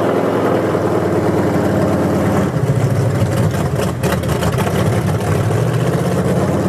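Engine of a big-tired mud truck running under way, its note stepping to a different pitch about two and a half seconds in and again a little after five seconds.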